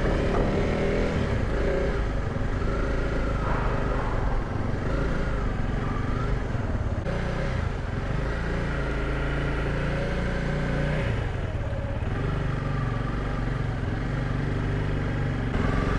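Honda CRF300 Rally's single-cylinder engine running as the motorcycle rolls along at low speed, a steady rumble with small rises and falls in pitch.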